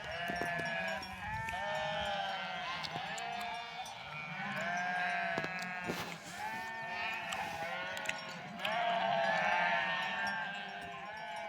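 A flock of sheep bleating, many calls overlapping without a break.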